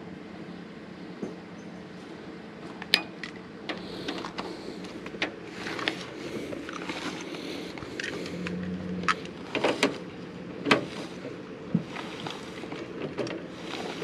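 A steady engine hum with scattered sharp clicks and knocks.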